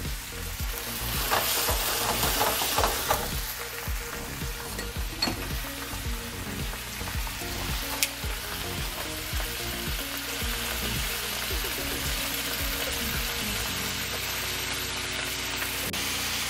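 Red wine sizzling and bubbling around lamb chops in a skillet as the alcohol cooks off, with a few sharp clicks of metal tongs against the pan as the chops are turned.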